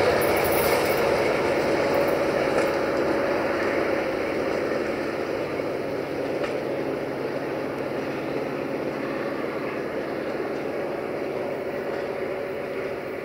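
Passenger train of coaches rolling away over the track, its wheel and running noise a steady rumble that fades gradually as it recedes.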